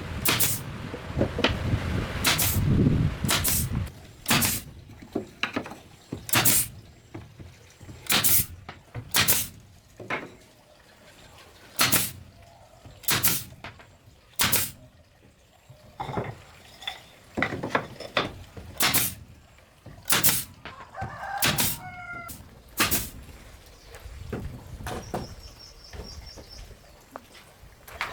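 Repeated sharp knocks, single blows about one every second or two, like a hand tool striking. A short pitched bird call sounds about three quarters of the way through, and brief high chirping follows near the end.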